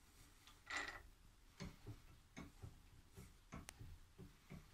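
Faint, irregular metal clicks from a homemade metal lathe's carriage being wound along the bed by its handwheel, the pinion working on the toothed rack, after a short scrape about a second in.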